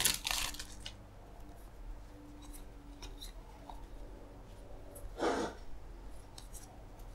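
Baseball trading cards being handled and slid against each other by hand as they are flipped through, with a brief crinkle of the plastic pack wrapper at the start and one louder swish of card on card about five seconds in.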